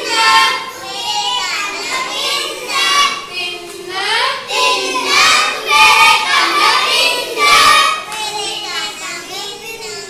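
A class of young children singing a counting rhyme in Punjabi with their teacher, phrase after phrase with short breaks between lines.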